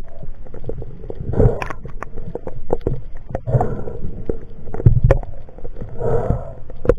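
Underwater sound of spearfishing gear being handled around a speared dogtooth tuna: scattered sharp clicks and knocks of shaft, clips and line, with low gurgling rumbles surging every second or so.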